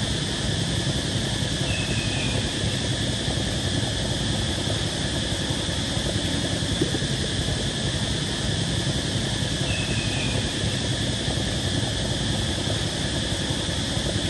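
A steady, even droning noise that does not change. Two faint, short high chirps come through, about two seconds in and again near ten seconds.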